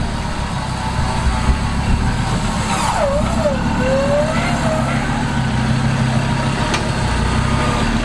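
Troller T4's turbo-diesel engine running steadily at low speed. A brief wavering voice is heard about three seconds in.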